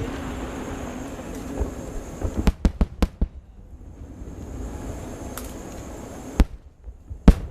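Fireworks shells bursting: a quick cluster of sharp bangs about two to three seconds in, another bang past six seconds and a loud one near the end, over a steady background rumble.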